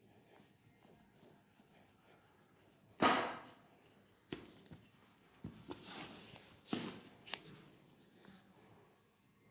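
Hands-on leg massage sounds: one sudden loud smack about three seconds in, followed by short brushing rubs on skin and several small sharp clicks.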